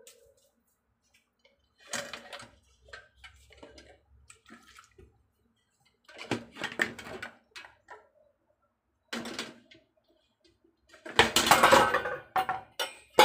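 Intermittent kitchen handling noises: short knocks and clatters of things being moved, with a longer, louder rush of noise about eleven seconds in.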